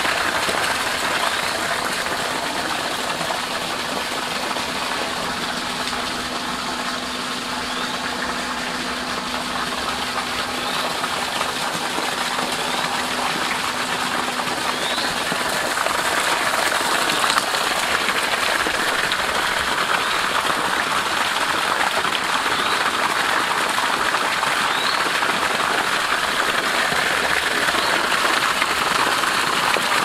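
Water gushing in strong streams from two PVC pipe outlets and splashing onto wet ground and leaves, a steady rushing noise. A faint low hum runs under it for about the first half.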